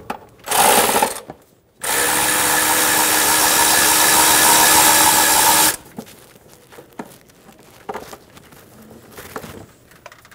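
Power tool driving a 10 mm socket to unscrew a timing cover bolt. There is a brief spin about half a second in, then a steady run of nearly four seconds that stops suddenly. Light clicks and rattles of the bolt and parts being handled follow.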